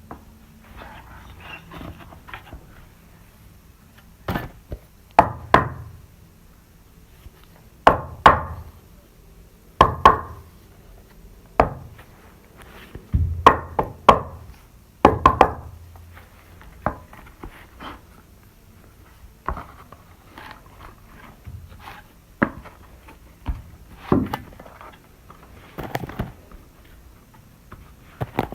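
Irregular wooden knocks and thunks, one every second or two, some with a dull low thump and some with a short ringing crack, as wood and tools are handled between saw cuts.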